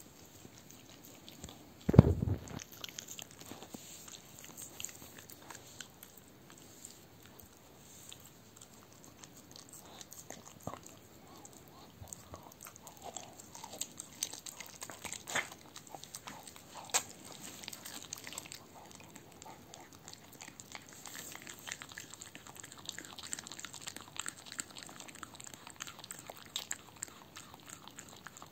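A dog biting and chewing a raw veal heart: irregular short smacks and clicks of the mouth and teeth. A single dull thump about two seconds in is the loudest sound.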